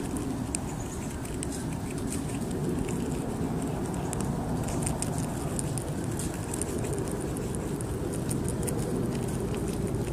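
Palm squirrel nibbling a green seed stem: rapid, irregular little crunching clicks from its teeth, over a steady low background rumble.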